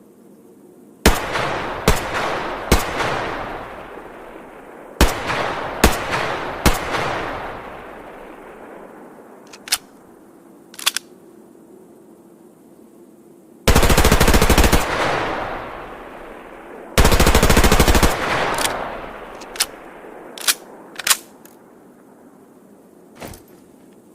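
H&K MP5 submachine gun firing: two sets of three single shots, then two full-auto bursts of about a second each, every shot trailing a long echo. Several short sharp clicks fall between and after the bursts.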